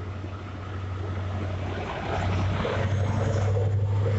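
A Great Western Railway HST pulling out of the station, its coaches rolling past with wheel and rail noise. Over this runs the steady drone of the rear Class 43 power car's diesel engine, which grows louder about two seconds in as the power car nears.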